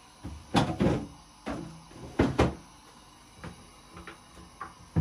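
An irregular series of short knocks and clatters, about ten in five seconds, loudest in the first two and a half seconds, as of objects being handled and set down.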